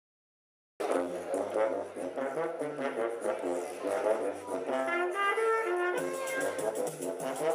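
Carnival brass band music with horns and tuba, starting abruptly about a second in. The music jumps at an edit near the end.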